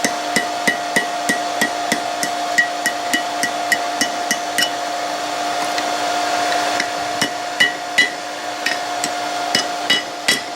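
Hammer blows on hot high-carbon steel over an anvil, bending a flint striker: quick, ringing strikes about four a second, a pause about five seconds in, then slower, irregular blows. A steady hum runs underneath.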